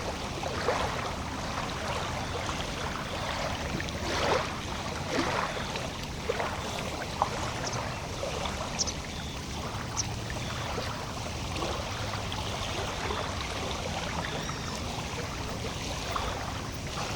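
Lake water lapping in small, irregular splashes over a steady background hiss.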